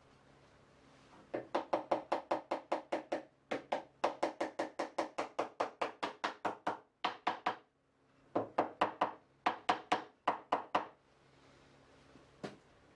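Rapid light knocks of a hand tool striking wood, about five a second, in runs of one to three seconds with short pauses, and a single knock near the end.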